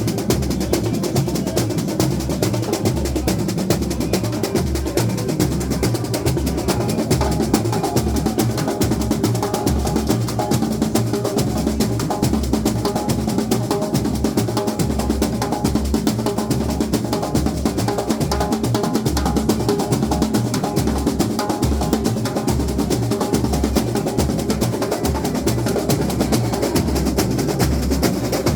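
Samba school bateria playing samba at full strength: a massed drum section with deep surdo bass drums pulsing steadily under a dense, fast texture of snare drums and smaller percussion.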